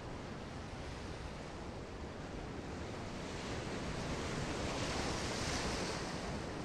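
Sea surf washing onto the shore, swelling into the hiss of a breaking wave about halfway through and then easing, over a steady low rumble of wind on the microphone.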